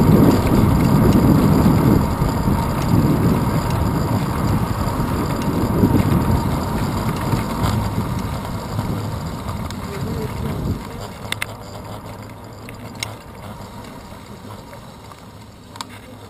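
Wind rushing over a handlebar-mounted action camera's microphone as a bicycle rides along, fading as the bike slows and dropping away about two-thirds of the way through as it comes to a stop. A few sharp clicks follow.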